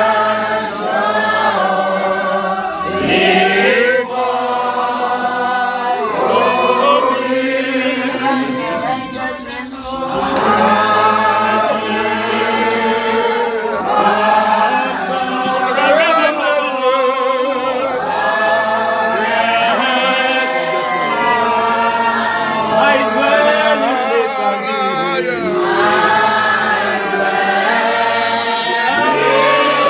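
Spiritual Baptist congregation singing a slow gospel chorus together, many voices in a group with wavering, drawn-out notes.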